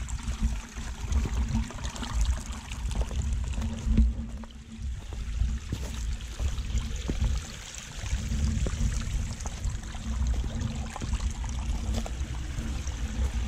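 Shallow forest stream trickling over mossy rocks, an even watery hiss with small splashy clicks, under an uneven low rumble on the microphone.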